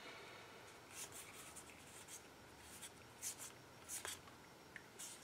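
Game cards sliding and rubbing against each other as a stack is handled and sorted, a series of short, faint swishes, the strongest about three and four seconds in.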